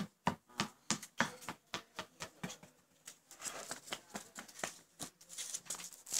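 Light, sharp taps on a concrete yard, about three a second, over the first few seconds, then a soft rustling hiss.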